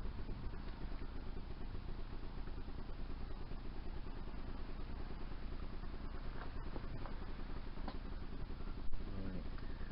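Steady low rumbling background noise, with a few faint clicks and one short sharp knock near the end, while a plastic bar-end plug is worked into a mountain-bike handlebar.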